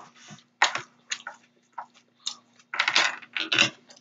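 Close-up eating sounds: a series of short, irregular crunches and clicks, busiest about three seconds in.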